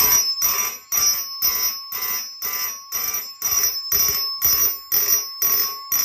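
Vintage Simplex fire alarm system in alarm after its pull station is pulled: horns sounding loud, even pulses about twice a second (march time), each pulse a harsh buzzing tone.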